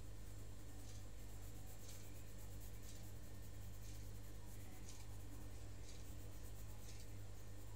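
Coloured pencil scratching on paper in short shading strokes, about one a second, over a steady low hum.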